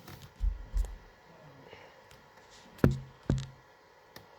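Two low thuds, then two sharp knocks about half a second apart, each with a short low ring.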